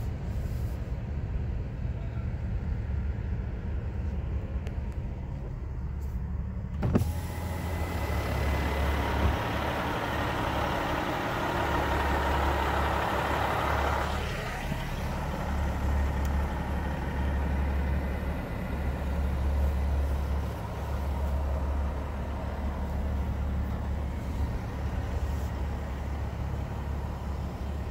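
Car driving slowly, heard from inside the cabin: a steady low rumble of engine and tyres. About seven seconds in there is a click, and the sound opens up as the side window comes down, letting in louder outside noise that peaks a few seconds later as the car passes close by parked trucks.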